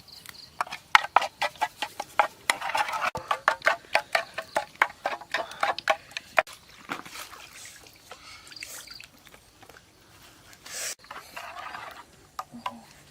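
Food preparation by hand: a rapid run of sharp knocks and clicks, about three to four a second, for several seconds, then fewer and softer handling noises.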